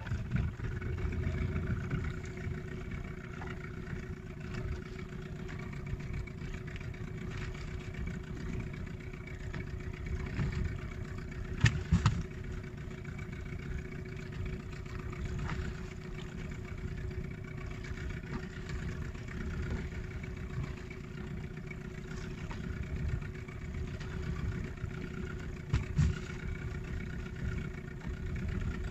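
Small fishing boat's engine idling steadily, with two short sharp knocks, one about twelve seconds in and one near the end.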